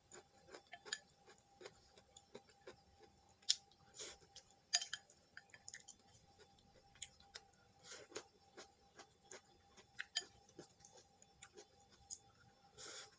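Quiet eating sounds: irregular small clicks and taps of utensils against a bowl, with soft chewing, over a faint steady hum.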